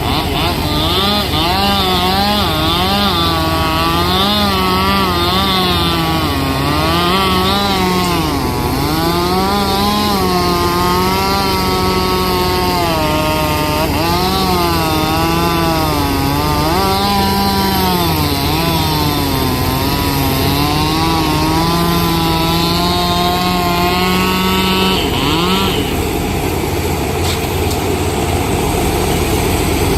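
Chainsaw running at high revs while cutting wood, its pitch dipping and recovering every second or two as the chain bites. It drops off about 25 seconds in, leaving a steady lower engine rumble underneath.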